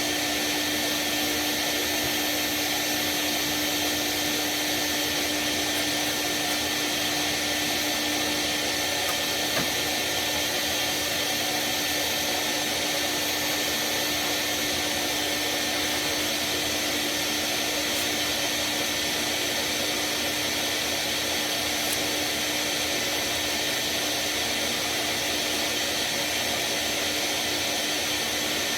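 Vacuum cleaner running steadily with a constant hum, sucking soot out of a cast-iron oil boiler's flue passages during a cleaning.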